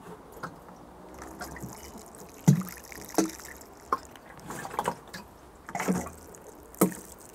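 Water pouring from a plastic watering can onto the soil of potted plants, with a few brief knocks along the way.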